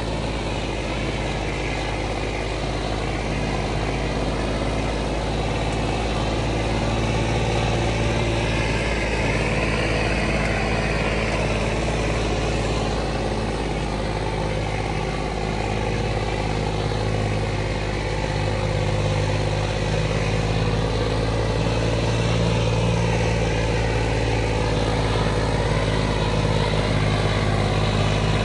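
A John Deere tractor's diesel engine running steadily, the level holding even with only slight swells.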